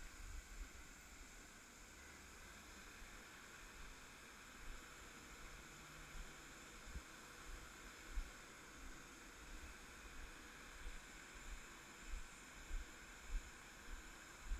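Faint, steady apron background noise: an even hiss with a low hum, broken by irregular soft low thumps that come more often in the second half.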